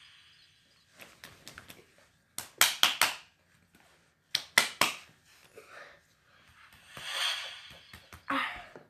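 Sound effects for an animated title intro: a swelling whoosh fades out, then come sharp hits in quick groups of four, another whoosh swells up near the end, and a last hit follows.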